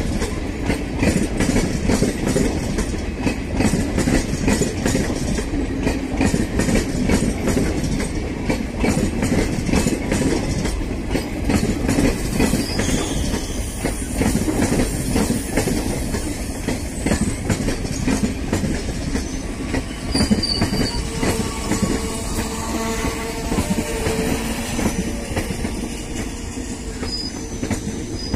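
Passenger train coaches rolling past close by on a curve: a steady rumble with rapid clicking of wheels over rail joints, and thin, high wheel squeals from the curve coming in over the last third.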